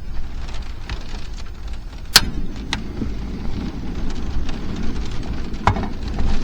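Rain and wind beating on a car sheltered under its raised tailgate, a steady rushing noise, with a few sharp clicks and knocks, the loudest about two seconds in.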